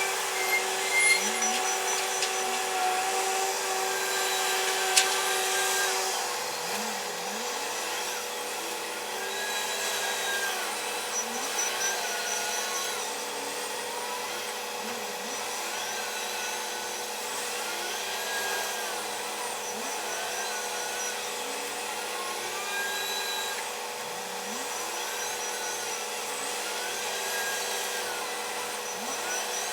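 Heavy machinery, plausibly the Komatsu WA500 wheel loader's diesel engine and hydraulics, running at a steady pitch for the first few seconds, then revving up and down again and again, about every two seconds, over a steady whine.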